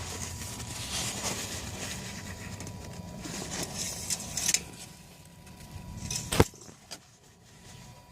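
Rustling and rubbing as the engine oil dipstick is wiped clean, then a single sharp click about six and a half seconds in, with a fainter one just after.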